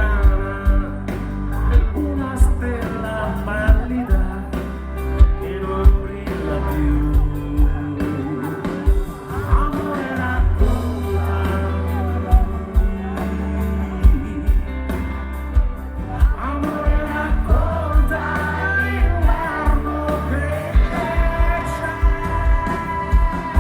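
Live pop-rock band playing a song, with a steady drum beat and a melodic lead line or vocal over it.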